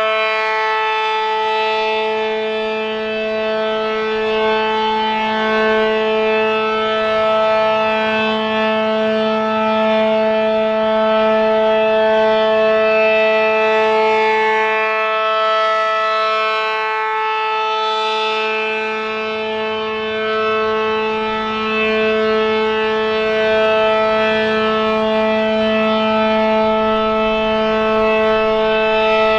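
ACA Allertor 125 electromechanical siren, fitted with a Penetrator horn and an 8/12-port rotor, sounding the Alert signal: a steady, unchanging dual-tone chord. Its loudness swells and fades slowly as the rotating horn sweeps past.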